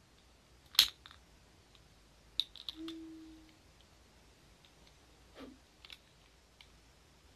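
A sharp click from a torch lighter's trigger, then several smaller clicks and a short, steady low hum lasting under a second. A brief falling tone and a few faint clicks follow near the end.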